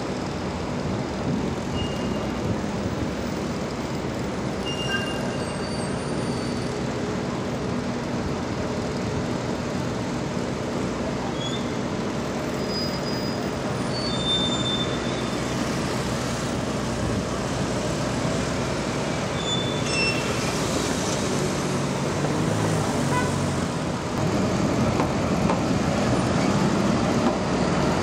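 A medium-duty International diesel truck's engine runs as the truck moves slowly through steady city street traffic noise. A few short high squeaks cut in here and there. The engine gets louder near the end as the truck pulls away.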